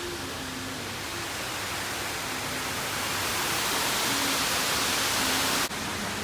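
A steady rushing noise, growing slightly louder, then breaking off sharply near the end into a slightly quieter rush.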